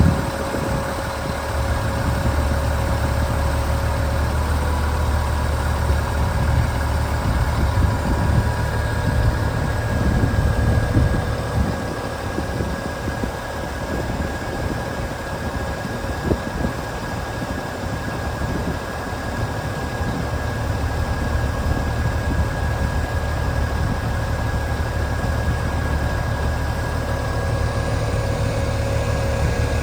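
Daewoo concrete pump truck's diesel engine running steadily at idle, with a few faint steady tones above the engine.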